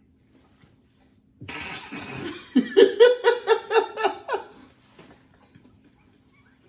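A person bursting into laughter: a breathy start, then a run of loud rapid "ha-ha" pulses, about five a second, that stop about three seconds later.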